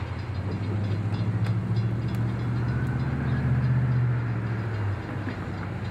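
A train running: a steady low engine drone that swells about half a second in and eases near the end, with a few sharp clicks over it.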